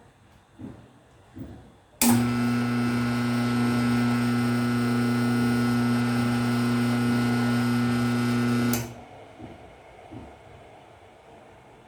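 Air compressor's electric motor, belt removed, switched on and running unloaded with a steady hum, starting abruptly about two seconds in and stopping about seven seconds later. It draws a normal current, showing the motor itself is sound.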